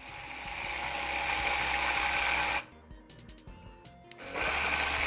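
Electric blender running, blending a frozen-fruit smoothie. It winds up over the first second with a steady whirring whine, stops about two and a half seconds in, then starts again near the end.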